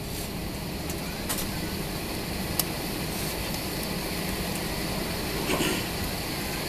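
Steady cabin noise of an Airbus A320neo taxiing: a low engine hum under an even air-conditioning hiss. A few faint clicks and rattles sound in the cabin.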